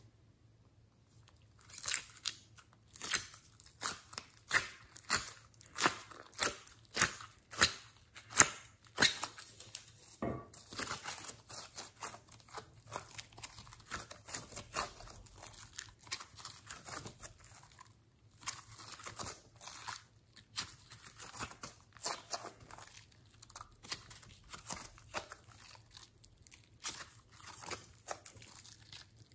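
Glossy slime mixed with clay being squeezed and kneaded by hand, its trapped air cracking and popping. From about two seconds in come loud sharp pops, roughly one to two a second. After about ten seconds the sound turns into denser, softer crackling.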